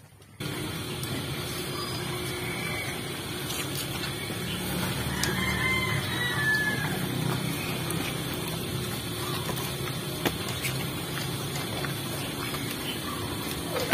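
Chickens clucking and a rooster crowing about five seconds in, over a steady low hum.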